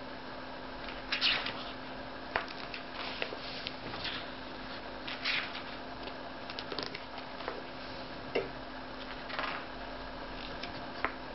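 Pages of a large hardcover book being turned by hand: a series of short paper swishes and rustles, a second or more apart, over a faint steady hum.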